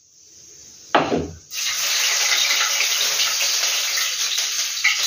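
Chopped onions dropped into hot ghee in a wok: a thud about a second in, then loud, steady sizzling as the onions start to fry.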